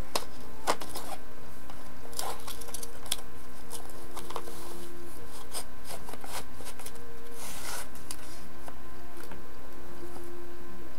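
Paper and cardboard being handled against a thin metal photo frame as the backing is fitted: light taps, rubbing and a brief rustle, over a steady faint hum.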